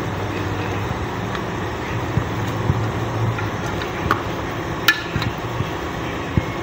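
A steel ladle stirring chicken in an aluminium pot, with a few sharp clinks of metal against the pot over a steady low hum.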